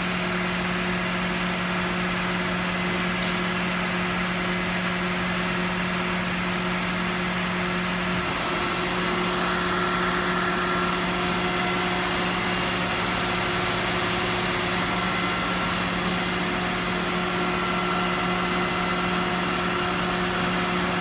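Steady hum and whoosh of running machinery in a truck repair bay, with a constant low tone. A faint high whine steps up slightly about eight seconds in.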